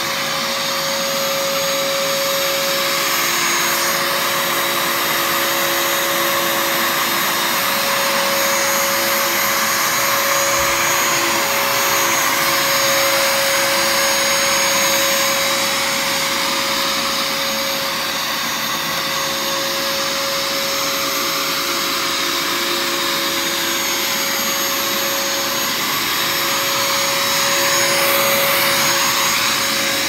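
Upright vacuum cleaner running steadily as it is pushed over carpet: a constant motor whine over a rushing hiss, swelling and easing slightly as it moves back and forth.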